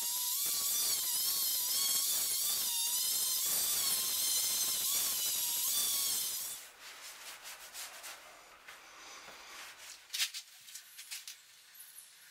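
Electric orbital sander running on the painted top of a ballast keel, its motor whine wavering in pitch as it is pressed into the work. It stops about six and a half seconds in, leaving a few light knocks and clicks.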